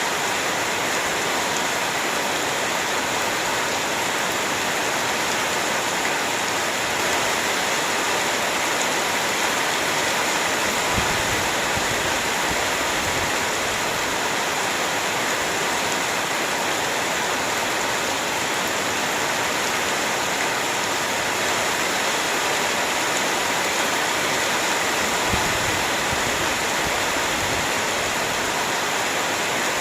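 Heavy rain falling steadily, a dense even hiss with no let-up, with a couple of soft low thumps about a third of the way in and again late on.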